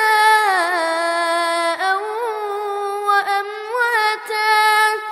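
Quran recitation in a boy's high voice, chanted melodically as one long drawn-out phrase whose pitch glides slowly up and down.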